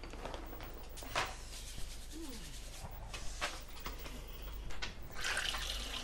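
Several scattered household knocks and clatters, then a kitchen tap running for about a second near the end.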